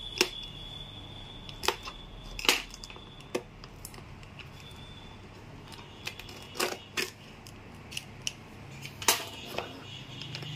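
Irregular sharp clicks and short scrapes as a snap-off utility knife slits the seal sticker on a cardboard graphics card box and the box is handled and opened.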